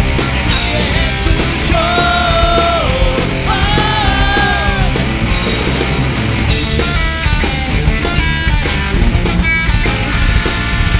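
Rock band playing a punk-rock song with a steady beat. In the first five seconds a lead line of long held notes bends at the end of each note. About six and a half seconds in a cymbal crash comes in, and after it the lead plays shorter, choppier notes.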